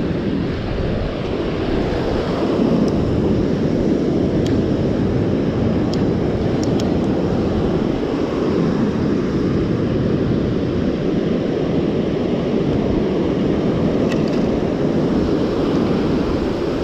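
Steady wind rumble on the microphone over the wash of ocean surf, with a few faint clicks.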